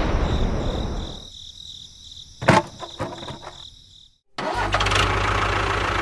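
After a sharp click and a moment of silence, an engine starts running steadily about four and a half seconds in, with a low even hum.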